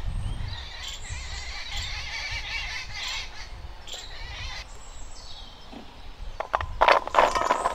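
Birds chirping in the background for the first few seconds. Near the end, a cluster of sharp metallic clinks with a short ring, as from steel bowls being handled.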